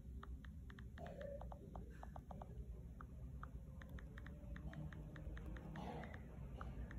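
Key clicks of an iPhone 7 Plus's on-screen keyboard as text is typed: quick, uneven runs of short clicks.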